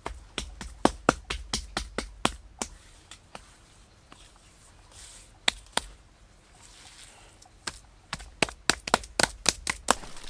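Sharp knocks or taps coming in quick runs of about five a second: one run at the start, a pair of single knocks about halfway, and another run near the end.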